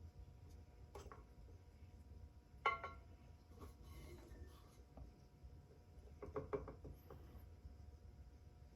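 Faint scraping of a potter's fettling tool carving away leather-hard clay, with a few short light knocks, the loudest about a third of the way in and a small cluster past the middle.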